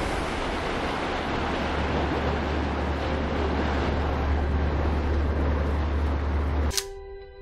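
A motorboat under way: steady low engine drone under the rush of churning wake water and wind. Near the end it cuts off suddenly and soft music with held notes comes in.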